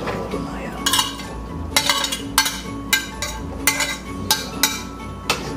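Metal spoon clinking and scraping against a ceramic plate in about a dozen sharp, irregular taps, knocking grated young coconut off into a pan.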